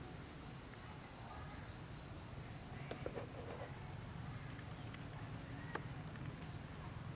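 Quiet outdoor ambience: a steady low rumble with a faint, thin high tone held throughout, and a few soft clicks about three seconds in and again near six seconds.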